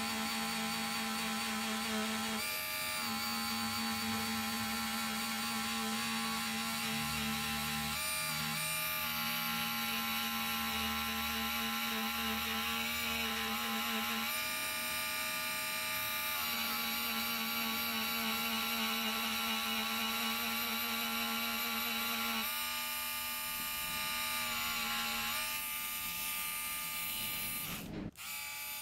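Small Harbor Freight rotary tool running a felt polishing wheel against a gold grill: a steady whine whose pitch shifts slightly every few seconds as the wheel works the metal. It drops out briefly near the end.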